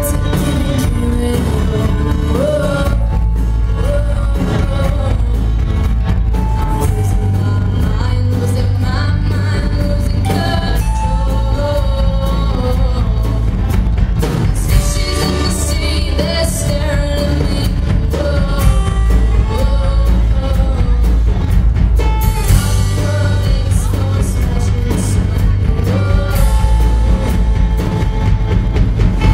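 Live rock band playing: a lead vocal over electric bass and a drum kit, the cymbals getting brighter in the second half.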